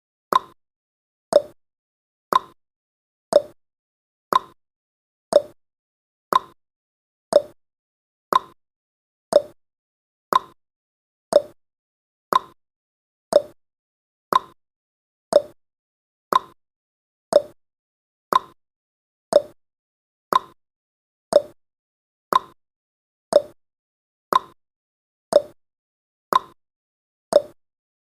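A countdown timer's ticking sound effect: one short tick every second, evenly spaced, each dying away quickly.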